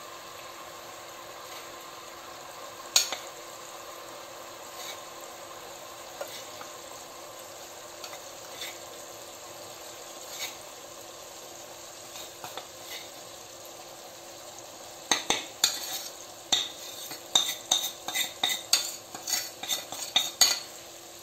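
Fat gently sizzling in a steel pot as flour is added over diced ham and spring onion, with a few scattered taps. From about fifteen seconds in, a quick run of taps and knocks against the pot.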